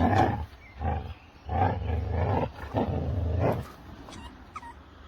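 Dog growling in four rough bursts over about three and a half seconds, then quieter.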